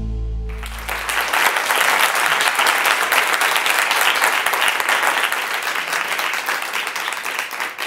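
An audience applauding, a dense clatter of many hands clapping that starts about half a second in and thins out near the end. Over the first second, the last held note of intro music dies away beneath it.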